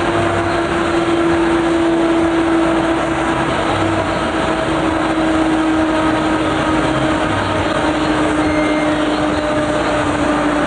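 Large metal spinning lathe running with a big polished metal dish turning on it: a steady hum over a broad mechanical noise, the hum's pitch falling slightly.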